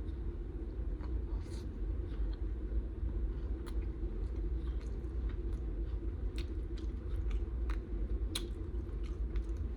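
Close-miked chewing and mouth smacking on a mouthful of burrito: scattered short wet clicks over a steady low hum.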